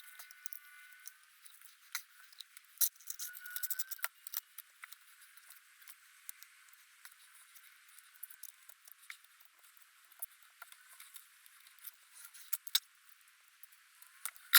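Piston rings being worked by hand onto a Harley-Davidson Evolution piston: scattered light metallic clicks and ticks, with a short faint squeak about four seconds in.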